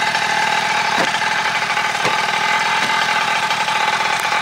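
TMR Performance 49cc two-stroke reed-valve engine with a prototype expansion pipe, in a Primal RC Raminator large-scale RC monster truck, idling steadily.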